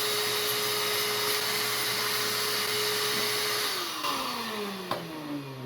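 Vacuum cleaner running at a steady pitch with a loud rushing hiss, then switched off about three and a half seconds in, its pitch falling as the motor spins down. A single click comes near the end.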